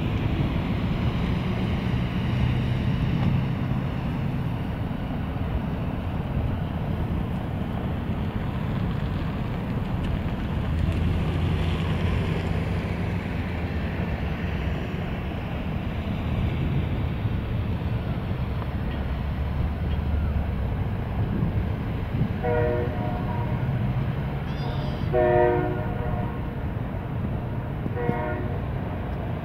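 Boeing 777-300ER's GE90-115B jet engines heard from the ground as the airliner climbs away, a steady low rumble. Near the end, three short horn-like tones sound over it, a few seconds apart.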